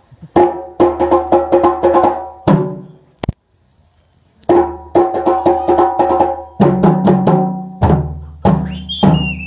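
Hand drums played in a quick rhythm of sharp, ringing strokes over a deep drum. The playing stops for about a second and a half, with one lone stroke, then starts again and stops just before the end.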